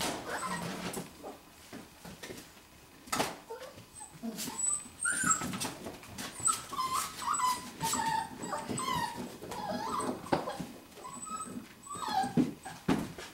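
Five-week-old golden retriever puppies whimpering and yipping in many short, high, wavering squeals, mixed with scattered knocks and clatter as they play.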